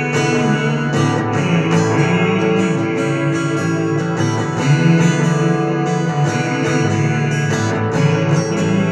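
Acoustic guitar strummed in a steady blues rhythm, with regular strokes a few times a second and no vocals.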